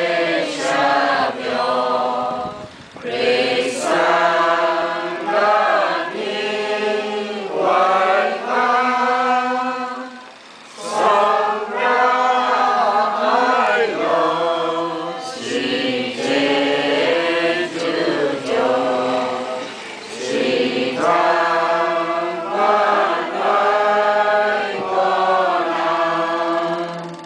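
A small group of worshippers singing a hymn together without accompaniment, in long phrases with brief pauses between them.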